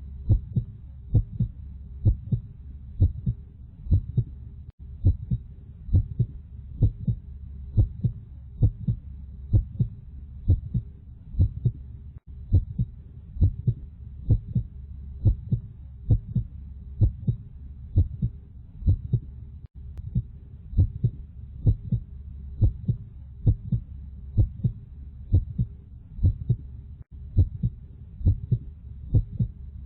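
Heartbeat sound effect: a steady lub-dub double thump about once a second, over a low continuous hum. A very brief gap in the sound comes every seven or eight seconds.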